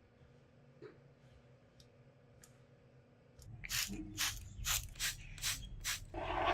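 Hand abrasive rubbing strokes on a surface, about two a second, beginning a little over three seconds in after a stretch of quiet with a few faint clicks; the last stroke is longer and louder.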